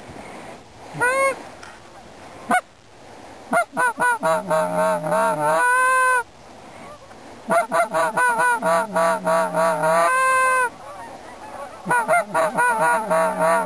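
Goose honking and clucking: three runs of quick clucks that build into a long drawn honk, coming about every four seconds.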